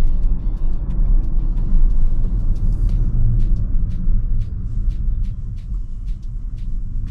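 Tesla electric car's tyre and road noise heard inside the cabin: a steady low rumble with no engine note, broken by scattered light ticks.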